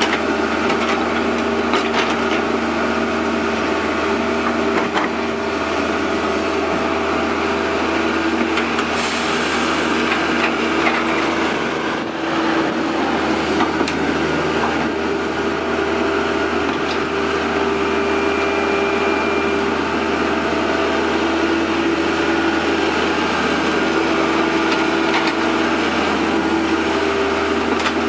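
Diesel engine of a Cat 308 compact excavator running steadily under working load while it digs in mud, its pitch shifting a little as the hydraulics take load. A few short knocks stand out over the engine.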